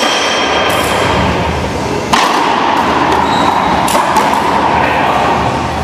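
Racquetball doubles rally: the ball smacking off racquets and the court walls several times, each hit echoing around the enclosed court, the loudest about two seconds in.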